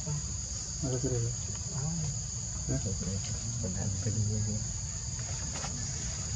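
Steady, high-pitched drone of a forest insect chorus, with faint low pitched calls now and then beneath it.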